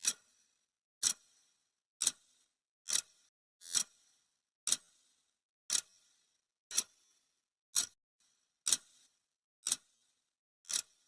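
Clock ticking sound effect: single sharp, bright ticks about once a second, evenly spaced, with silence between them.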